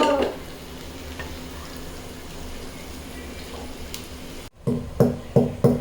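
Steady hiss of whole spices and paste frying in oil and ghee for a biryani tempering, then, after a break, four quick knocks of a nutmeg being pounded.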